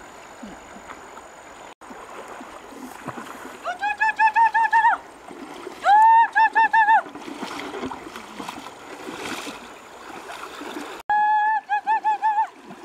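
Three bursts of a toddler's high-pitched squealing, each a quick run of about five pulses, over the steady rush and splash of river water around a large metal pan being pushed through the shallows.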